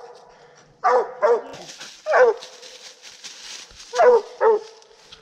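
Coonhound barking at a tree, five loud barks, the last two close together. This is the tree bark that tells the hunter the quarry is treed.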